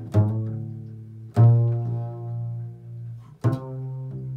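Improvised music of low plucked string notes: three notes struck at the start, about a second and a half in, and about three and a half seconds in, each left to ring and fade; the middle one is the loudest.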